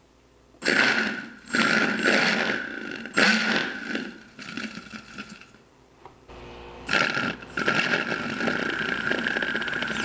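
Small RC-plane motor spinning a foam-board saw blade, with a whir and a steady high whine. It is throttled in three short bursts of about a second, then runs steadily from about seven seconds in.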